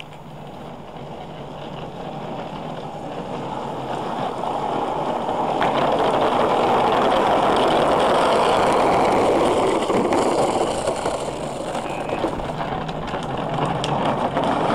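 Small plastic wheels of toddler ride-on toys rumbling down wet tarmac, growing louder as the riders approach and are loudest as one passes about halfway through, then rising again near the end.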